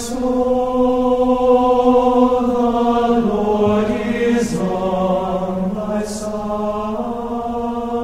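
Chant sung in long held notes that step down and back up between a few pitches, with a soft sibilant consonant now and then.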